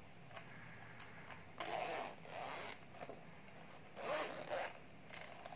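Zipper of a hard-shell sunglasses case being pulled open in two strokes, the first about one and a half seconds in and the second about four seconds in, with a few small clicks between.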